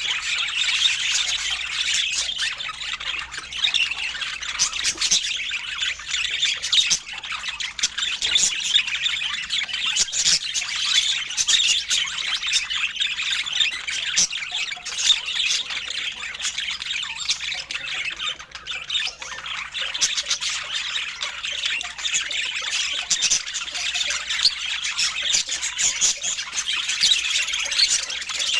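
A group of budgerigars chattering, a dense, unbroken stream of short chirps and squawks overlapping each other.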